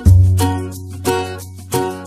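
Background music: a bright plucked-string tune, like a ukulele, with notes struck in a steady rhythm over a deep bass note that comes in at the start.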